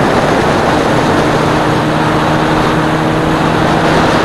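Fishing boat's outboard motor running at speed, with rushing wind and water noise. A steady engine hum comes up about a second in.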